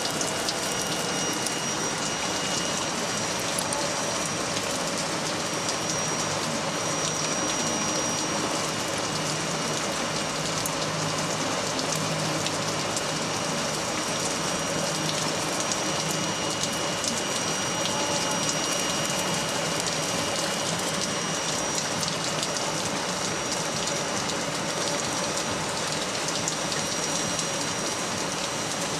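Looftlighter electric charcoal lighter blowing a steady hiss of superheated air into lump charcoal, with a faint motor whine and scattered light ticks from the sparking charcoal.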